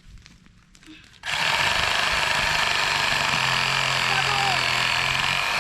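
Gas chainsaw running at full throttle, cutting through autumn olive trees. It starts abruptly about a second in and then runs steadily and loud.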